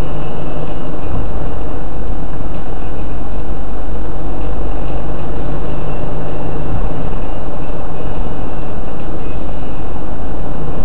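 Steady engine and tyre noise of a car driving along a city street, heard from inside the car, loud and unchanging, with a low engine hum underneath.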